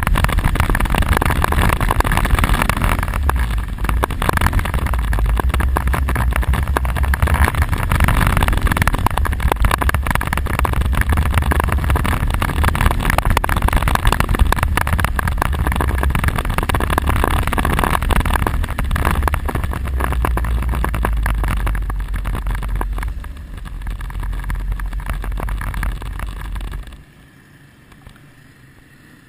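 ATV (quad bike) engine running while riding a dirt track, mixed with wind buffeting on the microphone. Near the end the sound drops off sharply to a much quieter level.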